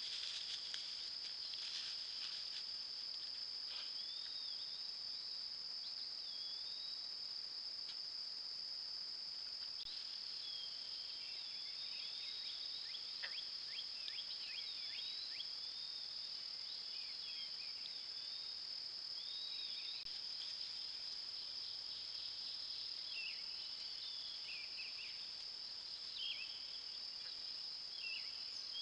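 Steady high-pitched insect trill, with scattered short chirping bird calls joining about ten seconds in and growing busier.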